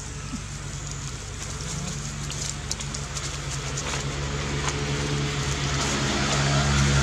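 An engine's low, steady drone that grows gradually louder, with a few light rustling clicks of dry leaves.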